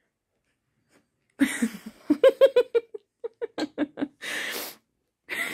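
A person laughing in quick breathy bursts, starting about a second and a half in, with a gasping inhale about four seconds in before the laughing starts again.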